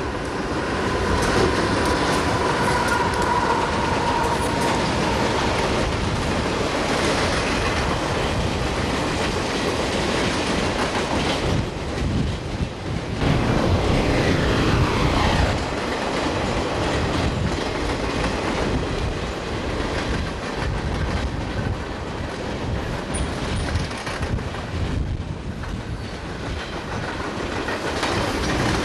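CSX freight train's cars rolling past close by: a steady rumble of steel wheels with clickety-clack over the rail joints. A thin wheel squeal rings in the first few seconds.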